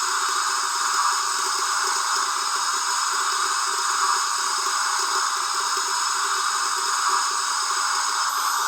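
Lenz O gauge Br86 model steam locomotive's DCC sound decoder playing a steady steam blow-down hiss through its small onboard speaker, with a faint fluttering hum underneath.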